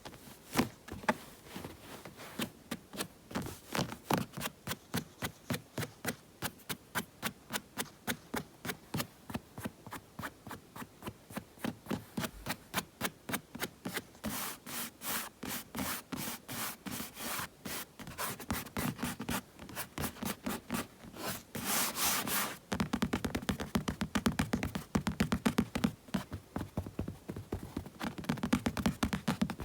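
Bare palms rubbing together in quick, even strokes, about four a second. About three-quarters of the way through, the hand sounds switch to a faster, denser and louder pattern.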